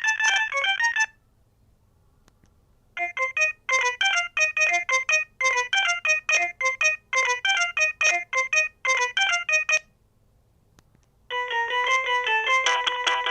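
Alcatel OT-E159a mobile phone playing its built-in ringtones. One tone stops about a second in. After a pause of about two seconds, a quick, bright melody of short notes plays for about seven seconds. After another short pause, a third tone with held, chord-like notes starts near the end.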